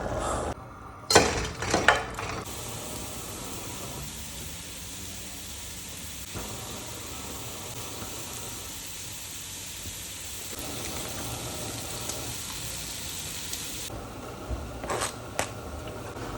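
Hot oil sizzling steadily in a cooking pot. A few sharp knocks of a pot or utensil come about a second in, and a few lighter clicks near the end.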